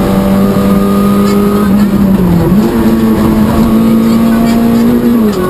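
Peugeot 106 XSi rally car's engine running hard at high, steady revs, heard from inside the cockpit. About halfway through the engine note dips briefly and picks up again to a slightly higher steady pitch, then falls away near the end.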